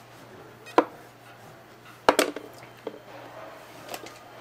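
Kitchen knife and slabs of sunfish flesh knocking on a plastic cutting board during cutting: a sharp knock about a second in, a louder one near the middle followed by a short clatter, then a few lighter taps.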